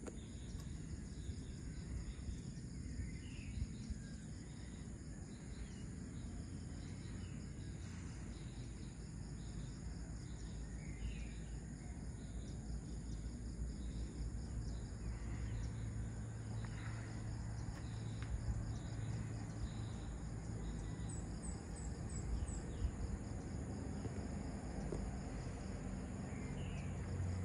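Dawn ambience: a steady high-pitched drone of crickets and other insects, with scattered short bird chirps, over a low steady rumble.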